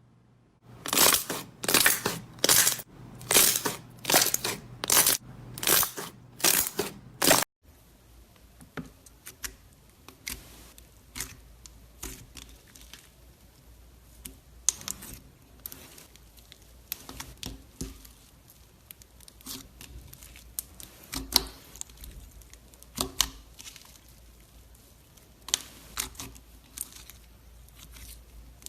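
Slime being squeezed and poked by hand. For about the first seven seconds there is a run of loud crackling strokes, roughly one and a half a second. After a sudden cut, quieter scattered small clicks and pops follow.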